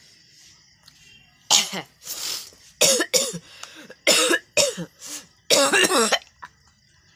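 A person coughing over and over: about eight coughs in close succession starting a second and a half in, the last one a longer run.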